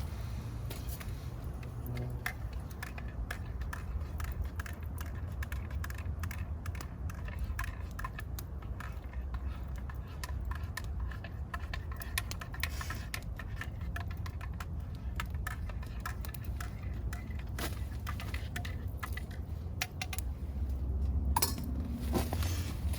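Small twig fire in a camp stove crackling, with many irregular sharp pops over a steady low rumble.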